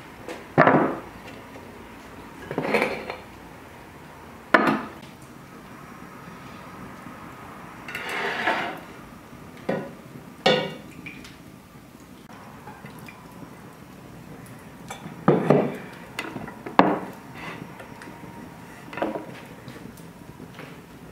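Cast-iron frying pan and iron cookware knocking and clattering on a wooden work table: about nine separate knocks and short scrapes, irregularly spaced.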